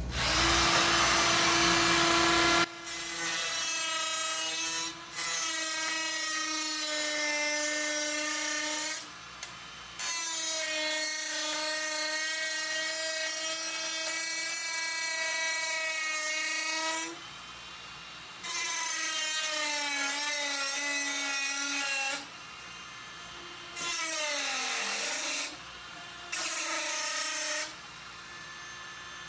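Small high-speed handheld power tool whining as it is run in repeated bursts of a few seconds each, working material. Its pitch sags briefly under load about three-quarters of the way through.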